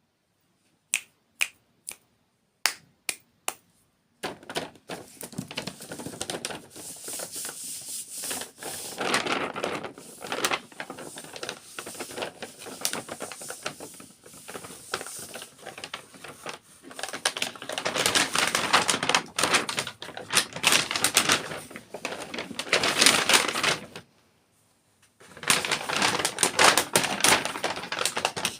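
Close-miked ASMR eating of desserts: a few single sharp taps, then dense crackling crunches and chewing that swell and ease, with a short pause near the end.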